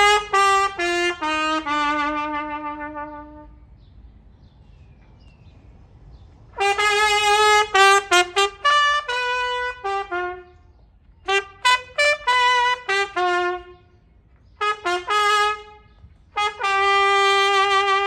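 A street musician's solo trumpet plays several short phrases of mostly falling notes, with pauses between them, and ends on a long held note.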